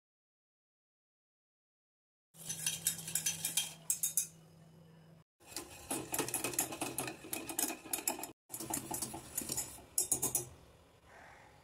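Wire whisk beating milk in a stainless steel saucepan, its wires rattling and clinking rapidly against the metal sides. It comes in three spells with short breaks between, after about two seconds of silence.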